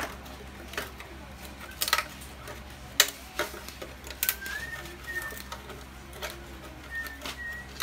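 Scattered sharp clicks and knocks of hand-tool work on motorcycle parts, irregular and a second or so apart. A bird chirps briefly a few times in the middle and near the end.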